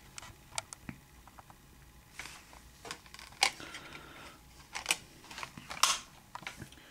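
Hands handling a Blu-ray disc in the clear plastic disc tray of a digibook: a scattered series of light plastic clicks with short rubbing and scraping sounds, the sharpest clicks about three and a half and about six seconds in.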